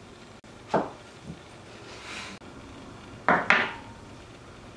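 Dishes and cutlery clattering as they are handled: a sharp knock about a second in, a softer scrape in the middle, and two quick knocks near the end.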